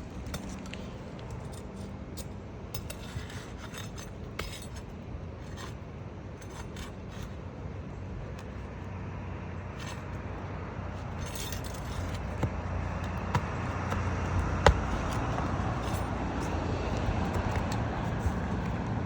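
Metal tool clinking and scraping against asphalt shingles and nails as nails are worked out of the roof: scattered short clicks and taps, with one sharper click about two thirds of the way in. A steady low rumble builds underneath in the second half.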